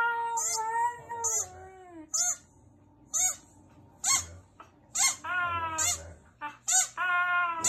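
Husky-Samoyed mix dog howling and "talking" in drawn-out, wavering calls in answer to a squeaky toy squeaked about once a second. A long howl slides down in pitch and ends about two seconds in. Shorter calls rise in pitch around five and seven seconds in.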